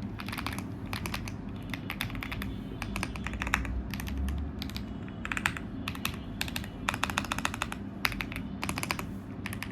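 Typing on a Royal Kludge L75 mechanical keyboard with beige switches: short bursts of rapid keystrokes separated by brief pauses.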